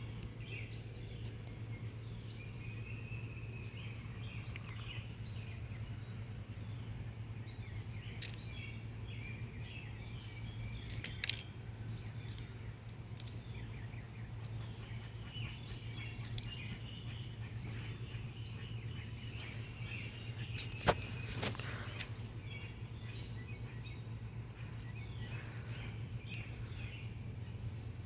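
Outdoor ambience: scattered short bird chirps over a steady low hum. A sharp click sounds about eleven seconds in, and two louder clicks come close together around twenty-one seconds.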